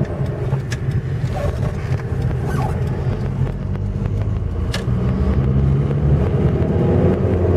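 Inside the cabin of a VAZ with a 1.6 8-valve engine fitted with a 56 mm throttle body, driving on the road: engine and road noise, the engine getting louder about halfway through as the car accelerates.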